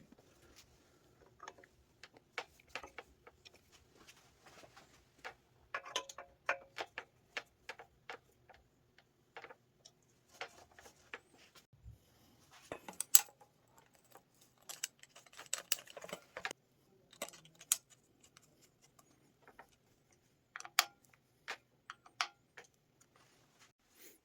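Irregular light clicks and clinks of small metal parts and hand tools being handled, with a few sharper knocks that ring briefly around the middle and again later.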